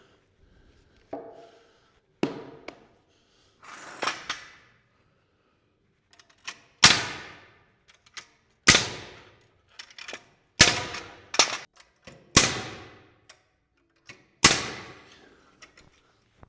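Pneumatic framing nailer firing nails into wooden wall framing: a few lighter knocks, then about six loud, sharp shots, each with a short ringing tail, spaced roughly two seconds apart.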